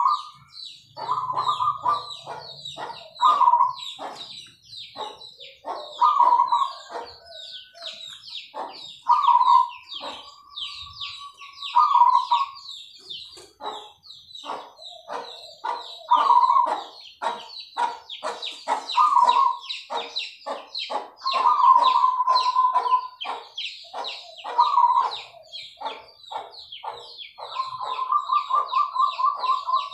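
Zebra doves (perkutut) cooing over and over, each phrase a run of quick staccato notes, some drawn out into an even trill, with short high chirps from other birds going on throughout.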